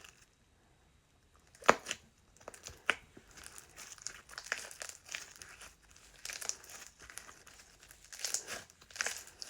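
Slime being squished and stretched by hand: irregular crinkly crackles and sticky pops, with two sharper snaps about two and three seconds in.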